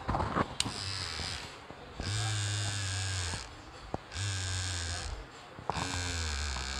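Cordless hair trimmer's motor buzzing in four short runs of about a second each, stopping between them with a click or two. The trimmer has a fault that makes it cut out during use: a loose battery connection.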